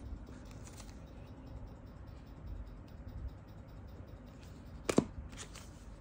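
Handling noise from boxed Zippo lighters in cardboard gift boxes being touched and picked up: faint rustling and scraping, with one sharp click about five seconds in, the loudest sound, and a short rustle after it.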